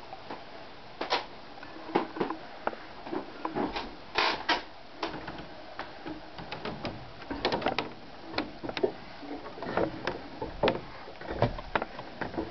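Scattered, irregular knocks and clicks in a small wood-panelled room: footsteps and handling noise from someone moving about with a handheld camera.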